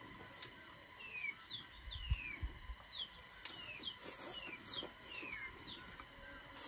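Small birds calling: a string of short chirps falling in pitch, a little over one a second, with a couple of soft low thumps about two seconds in.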